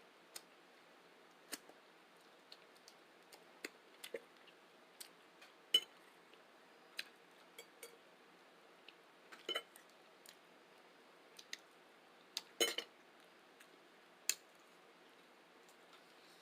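Eating sounds: sparse, irregular light clicks and clinks of an eating utensil against a dish, some ringing briefly. A quick cluster of louder clinks comes about three-quarters of the way through.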